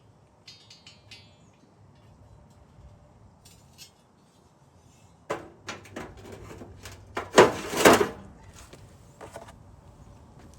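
Metal clanks and rattles as the steel scraping edge of an ATV snow plow is flipped and handled: light jingling at first, then a run of sharp knocks with the loudest clatter a little past the middle.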